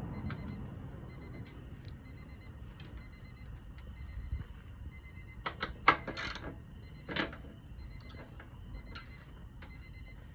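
A few sharp clicks and knocks a little past halfway, the loudest about six seconds in and another just after, from hands and parts being worked on a car door. Under them run a low rumble and a faint steady high whine.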